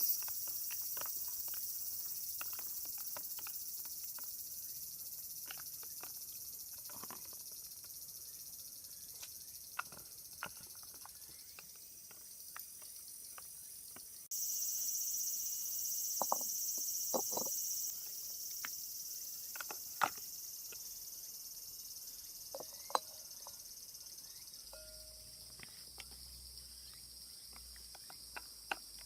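Steady high-pitched chorus of summer insects, with scattered light clicks and knocks. The insect sound jumps louder for a few seconds about halfway through.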